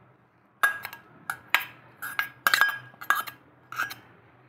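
Steel spoon knocking and scraping against stainless steel bowls as chopped coriander is pushed out of one bowl into another: a quick irregular series of ringing metallic clinks.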